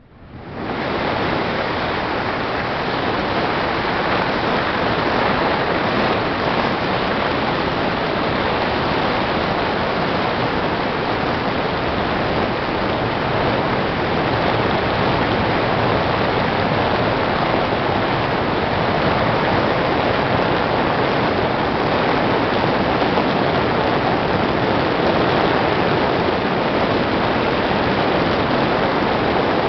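Steady rushing of water and wind from a motorboat underway, with no distinct engine note standing out.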